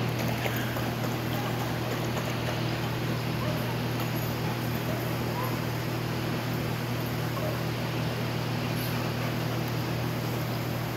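Steady low hum under an even hiss of background noise, unchanging throughout, with no barking or other clear events.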